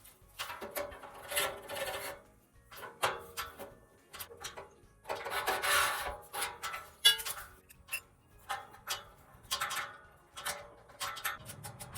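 Irregular scraping and rubbing with scattered sharp clicks and knocks, one longer scrape about halfway through, as the metal pipe and clamps of a DIY gate drop rod are handled and fitted.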